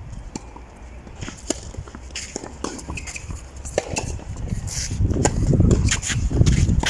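Tennis ball struck by a racket on a serve on a clay court: a sharp pop about two-thirds of the way in, another sharp hit near the end, with scattered small clicks and footsteps on clay. Low background noise grows louder in the second half.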